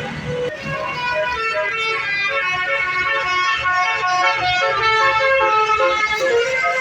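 Indonesian bus 'telolet basuri' musical horn playing a quick tune of short stepped notes, over a low engine rumble.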